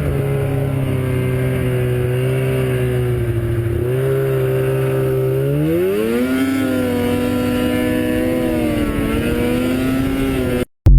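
The engine of an old F7 runs steadily, then is revved up about six seconds in and held at the higher speed, before cutting off abruptly near the end.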